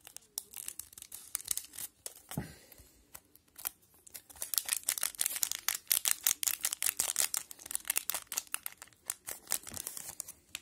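Hockey card pack wrapper being cut with scissors and then crinkled and handled as the cards are pulled out. Scattered crackles at first, turning into a dense run of sharp crackling through the middle.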